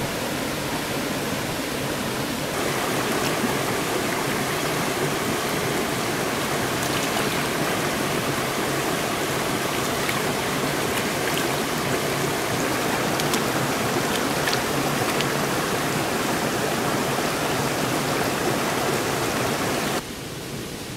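Shallow rocky stream running, a steady rush of water, with small splashes as an eel is handled and dipped in it. Near the end the rush drops suddenly to a quieter hiss.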